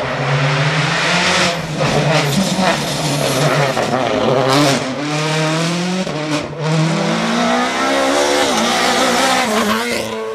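Rally car engine driven hard, its pitch climbing steeply and dropping again and again as the driver shifts gear and lifts for corners, with several abrupt breaks in the note.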